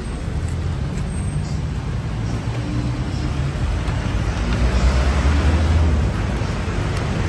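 Street traffic: vehicle engines running with a steady low rumble, growing louder for a moment about five seconds in.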